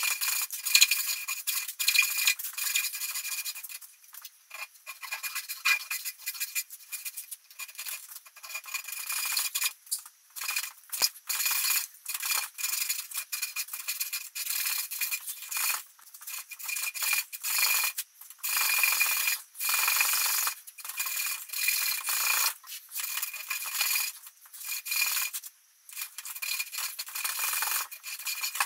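Japanese pull saw cutting into a thick block of hardwood: a rasping hiss in repeated strokes, broken by short pauses. The first few seconds are a denser, unbroken scraping.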